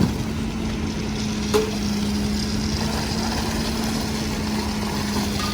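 Engine running with a steady hum, with two sharp knocks, one right at the start and another about a second and a half in.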